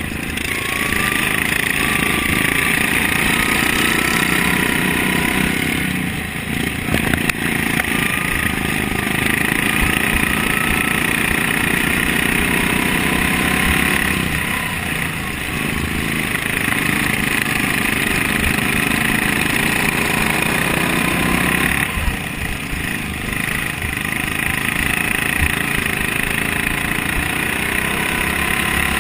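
Racing lawn mower's Briggs & Stratton Vanguard engine running hard, heard close up from on board. The engine note drops away briefly three times, about a quarter, a half and three-quarters of the way through, and picks up again each time.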